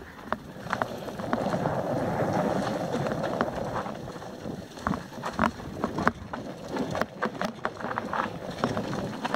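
Mountain bike descending a forest singletrack. The tyres rush through leaves and dirt, and the bike clacks and rattles over bumps and roots. The rushing is strongest in the first few seconds, and the clatter comes more often after that.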